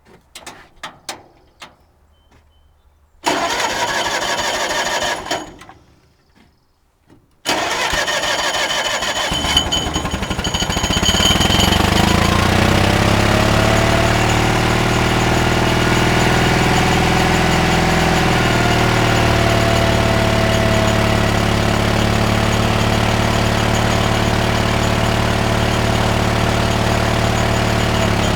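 1950 Caterpillar D6 crawler tractor starting up: a few clicks, a first try about three seconds in that runs briefly and dies, then the engine catches about seven seconds in and settles into steady running. It is hard to start, which the owner puts down to air getting into the system.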